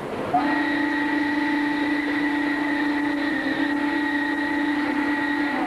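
Steam locomotive whistle blowing one long, steady chord lasting about five seconds, starting about half a second in.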